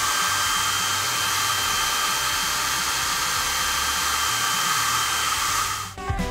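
Hair dryer running on a steady blow with a thin whine, cutting off suddenly near the end.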